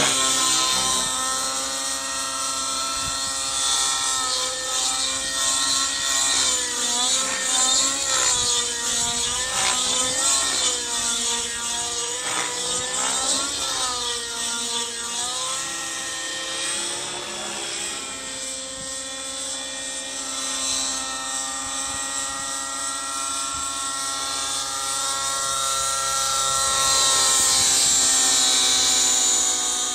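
Align T-Rex 700 radio-controlled helicopter flying 3D aerobatics: a continuous pitched whine of motor and rotor blades that wavers up and down in pitch through the manoeuvres in the middle, then runs steadier and grows louder near the end as it passes closer.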